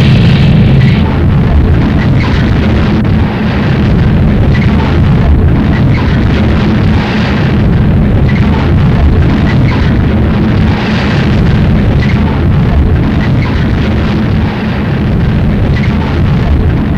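Harsh noise music: a loud, dense wall of distorted noise that stays steady throughout, heaviest in the low end.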